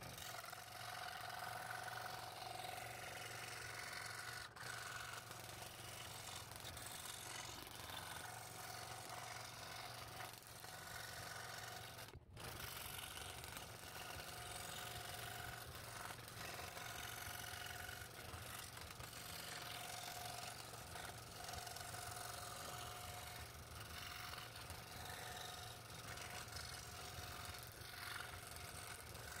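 Scroll saw running, its reciprocating blade cutting through 1/8" plywood, with a steady hum under the cutting noise. A brief break in the sound about twelve seconds in.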